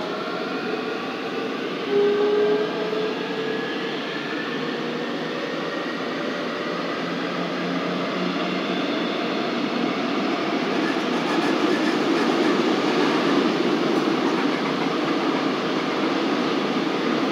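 Busan Metro Line 2 subway car running between stations, heard from inside the car: a rising electric motor whine at first as the train picks up speed, a brief loud steady tone about two seconds in, then wheel and track rumble growing louder in the second half.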